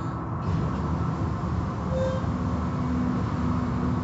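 Automatic tunnel car wash running: a steady rumble of its motors, water spray and cloth curtains and brushes working over the vehicles, heard through the car's window. It gets a little louder about half a second in.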